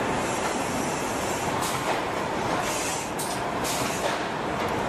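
Steady din of a car assembly plant floor, machinery running, with several short hisses about two to four seconds in.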